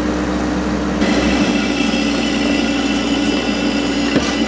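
Rippa R32 mini excavator's diesel engine running steadily, with a higher whine joining about a second in, as when its hydraulics are worked. A short click comes near the end.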